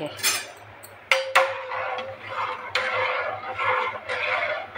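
Metal slotted spoon stirring ground rice into milk in an aluminium pot. It knocks twice against the pot about a second in, then scrapes round in repeated strokes, about two a second.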